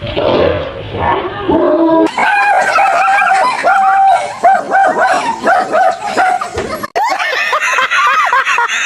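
A dog yipping and whining in a quick, near-continuous run of short high-pitched cries.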